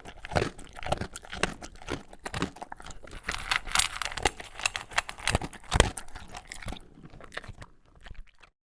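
A dog crunching and chewing dry kibble: quick, irregular crunches with one loud crunch near the middle, thinning out and stopping near the end.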